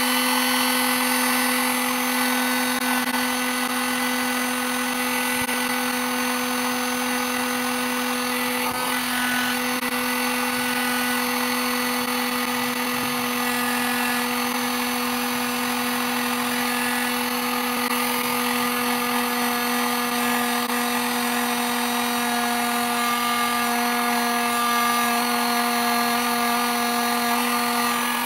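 Electric heat gun running steadily: a constant motor hum under an even rush of blown air.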